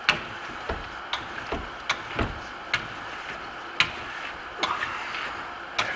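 A Venetian plaster trowel burnishing Grasello plaster, making a sharp click roughly once a second as the blade strokes across the surface. There are a few dull knocks early on and a short scrape near the end. The plaster is being compressed to a polish as it dries.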